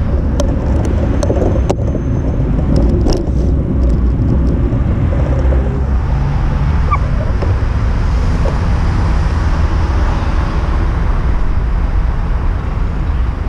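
Wind rumbling on an action camera's microphone during a bicycle ride, with road traffic passing. A few sharp clicks and rattles come in the first few seconds.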